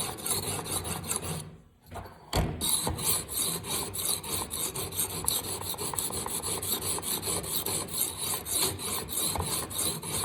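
Sharpening stone on a guided-rod knife sharpener rasping rapidly back and forth along a knife edge, with a short pause and a single knock about two seconds in. This is the refining stage, turning the heavy scratches from the coarse grind into light ones.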